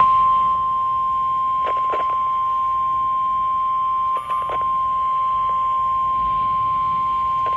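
NOAA Weather Radio warning alarm tone: one steady, loud 1050 Hz beep held unbroken over a weather radio receiver, announcing that a severe thunderstorm warning is about to be read. A few faint static crackles sound under it, with a brief dropout about four seconds in.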